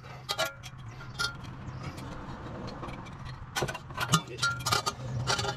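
Scattered sharp metal clicks and clinks from a front CV axle and its outer joint being handled and guided toward the wheel hub, a few with a brief ring, most of them about three and a half to four seconds in. A steady low hum runs underneath.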